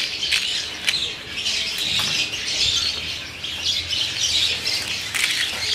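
Crisp fried fuchka (pani puri) shells being crushed in the hand: a dense, continuous crackling crunch with many sharp snaps. The crackle is the sign of shells fried and dried fully crisp.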